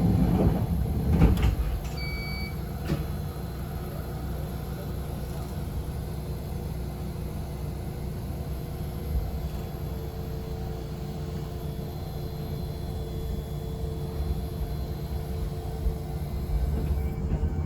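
Yoro Railway electric train heard from inside: a couple of thumps about a second in and a single short beep about two seconds in, then a steady low rumble with a faint hum that grows louder near the end.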